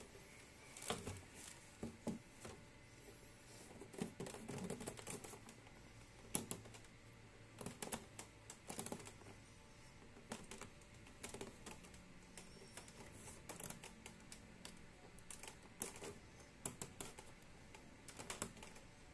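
Replacement HEPA filter's plastic frame being pushed and pressed into the filter slot of a Panasonic F-PBJ30A air purifier: faint, scattered clicks and taps of plastic on plastic. The fit is a bit tight.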